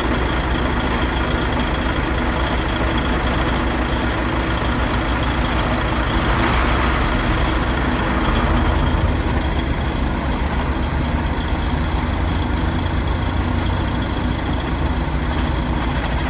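Concrete mixer truck's diesel engine running steadily at a low rumble, with a brief hiss about six seconds in.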